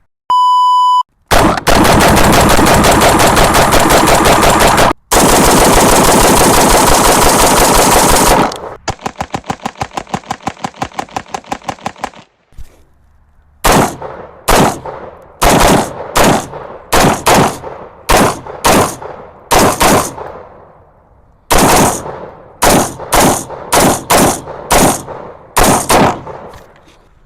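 A short electronic beep, then about seven seconds of continuous rapid automatic gunfire. A slower burst of evenly spaced shots follows and fades out. From about halfway on come single gunshots, one after another, roughly one or two a second, each with a short echo.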